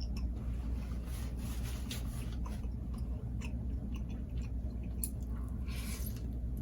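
Close-miked chewing of food, with scattered small wet mouth clicks, over a low steady hum.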